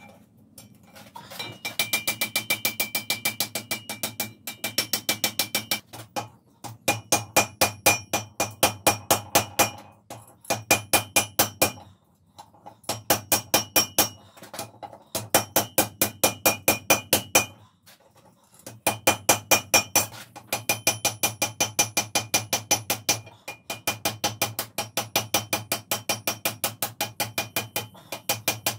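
Hand hammer rapidly striking red-hot wrought iron held in tongs on the anvil, about five blows a second in runs of two to three seconds with short pauses between. Each blow rings with a metallic clang.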